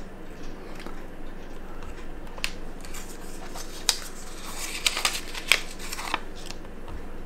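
Paper envelope of a replacement watch crystal and a steel watch case being handled on the bench: rustling with a handful of short sharp ticks, most of them in the second half.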